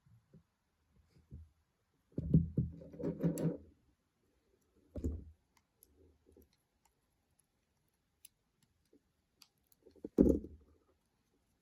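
Small 3D-printed plastic model parts being handled and fitted together: scattered clicks and soft knocks, with a busy run of them about two seconds in, one knock about five seconds in, and another run near ten seconds.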